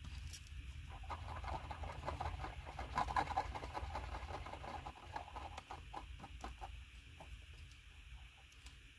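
Wooden stick scraping and tapping on a plastic lid while epoxy is scooped and stirred: a run of faint scratchy ticks that thin out after about five seconds.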